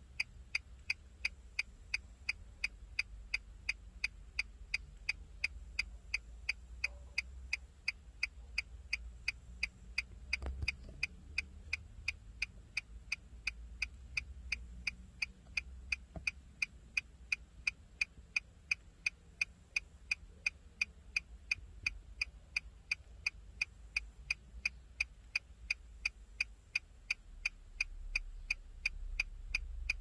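Nissan Versa turn signal ticking: an even, steady tick-tock of sharp clicks.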